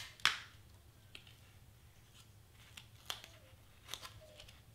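Paper craft cutout pieces being handled and pressed together on a cutting mat: a few short crinkles and taps, the loudest about a quarter second in, with others near three and four seconds.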